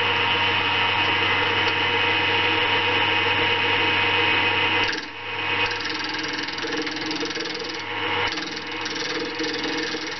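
Small electric wood lathe (GMC 4-speed) running steadily with a constant motor hum, spinning a banksia seed pod. From about five seconds in, the sound turns rougher and uneven, with a rasping hiss as a hand-held tool is worked against the pod to smooth off its rough edges.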